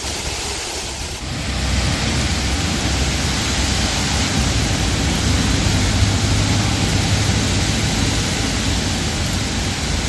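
Heavy rain pouring steadily onto wet pavement and foliage, growing louder about a second in, with a low rumble underneath.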